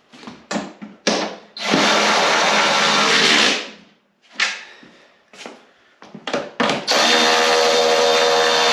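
A handheld power tool's motor running in two steady runs of about two seconds each, with short knocks and clicks of handling between them.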